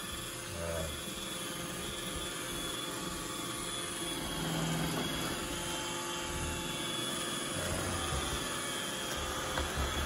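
iRobot Roomba 960 robot vacuum running: the steady whir of its vacuum motor and brushes as it drives out from under a sofa.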